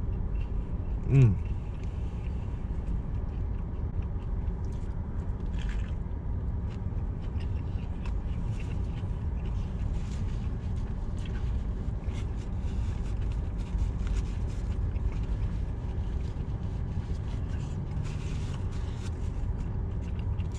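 Steady low rumble of a car interior, with one short hummed vocal sound about a second in. It is followed by faint crackles of a paper burger wrapper and chewing while the man eats.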